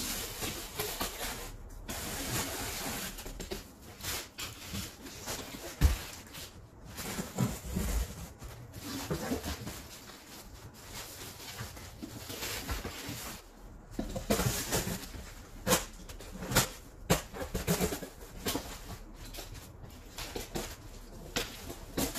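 Large corrugated cardboard sheets being handled and cut with a box cutter: uneven scraping and rustling of cardboard, with a few sharp knocks.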